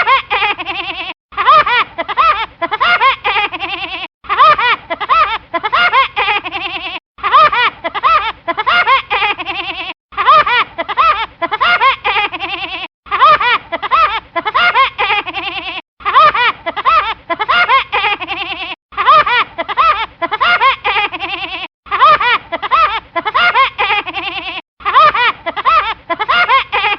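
Woody Woodpecker's cartoon laugh, a rapid string of pitched notes that starts loud and trails off, looped about every three seconds.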